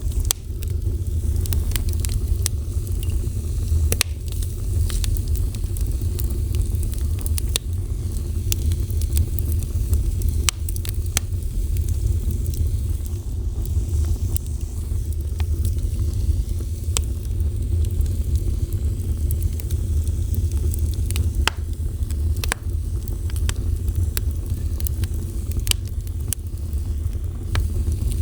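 A fire burning, with a steady low rumble and frequent sharp crackles and pops scattered throughout.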